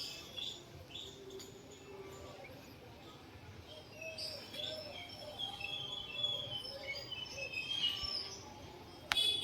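Birds chirping and calling: many short high chirps, with a run of lower repeated calls in the middle. Near the end a louder sound begins abruptly.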